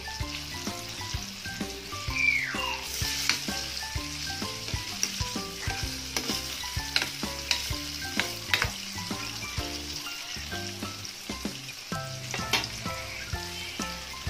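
Tofu cubes frying in hot oil in a wok, a steady sizzle with scattered sharp pops and clicks as a spatula stirs them.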